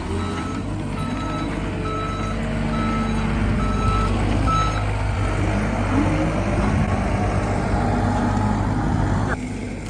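Heavy machine's engine running while a reversing alarm beeps about every two-thirds of a second; the beeping stops about halfway through, the engine revs, and its sound drops away suddenly shortly before the end.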